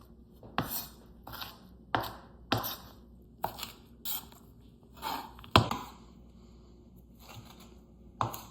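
Knife chopping sandwich fillings (lettuce, deli meats, cheese) on a cutting board: irregular strokes, each a sharp knock with a short crunch, with a brief pause a little past the middle.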